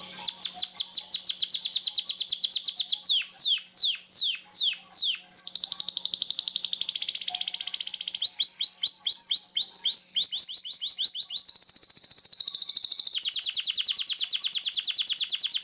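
Spanish Timbrado canary singing a continuous song of fast trills and rapidly repeated notes, broken about three to five seconds in by a run of slower downward-swooping notes.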